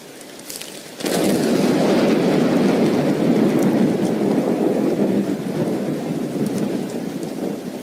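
A thunderclap breaks about a second in and rumbles on, slowly fading over several seconds, over steady rain.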